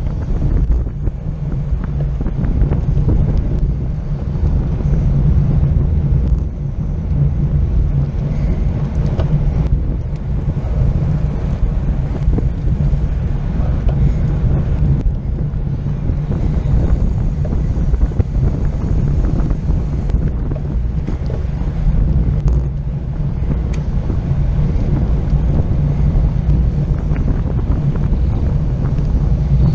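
Wind buffeting the microphone of a camera on a road bike riding in a racing pack: a loud, steady low rumble.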